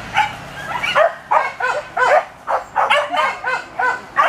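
Hunting dogs barking and yelping excitedly in a rapid series, about three or four short calls a second, coming faster from about a second in.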